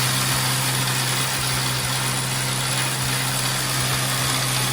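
Electric belt grinder running steadily, with a constant motor hum and a broad hiss from the abrasive belt as a steel knife blade is ground smooth to remove the hollows from the bevel.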